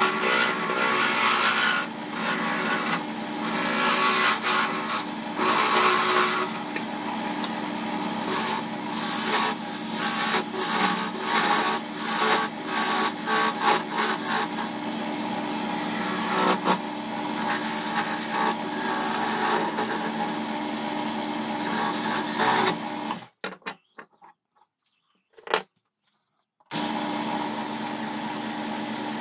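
Electric wood lathe running with a steady hum while a hand-held turning chisel cuts the spinning cherry-wood handle blank, giving repeated bursts of scraping as the tool bites and lifts. Near the end the sound drops out for about three seconds, then only the lathe's steady hum remains.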